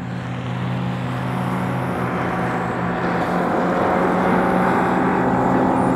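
Outboard motor of a flats boat running at planing speed across the water, with a steady engine tone that grows gradually louder as the boat approaches.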